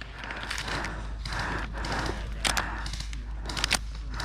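Footsteps and rustling through undergrowth, broken by a few short sharp cracks, the clearest about two and a half and three and a half seconds in.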